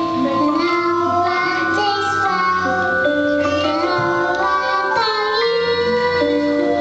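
A young girl singing a solo into a microphone over an instrumental accompaniment.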